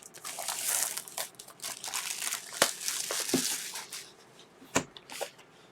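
Crinkling and tearing of plastic or foil wrapping as a sealed trading-card box is opened. The rustling is dense for about four seconds, then eases into a few sharp clicks, one louder snap near the end.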